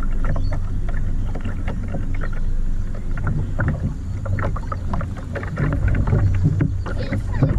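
Small boat on the water: a steady low hum and rumble with many short knocks and splashes against the hull.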